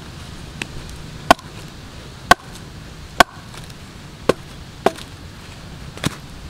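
Large curved knife chopping into whole palmyra palm fruits: a series of sharp, short chops, roughly one a second and unevenly spaced.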